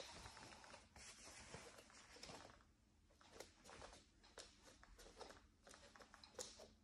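Faint creaks and clicks from a wooden plank floor under slow barefoot steps, a scatter of small short sounds.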